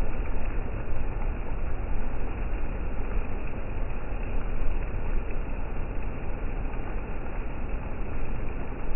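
Steady low rumbling noise of a rainstorm, slowed down in slow-motion playback, with no distinct thunderclap at the lightning flash.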